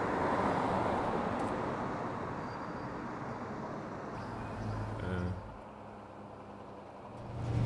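Street traffic noise: a vehicle's rush fades away over the first few seconds. It then goes quieter, and a low steady hum swells near the end.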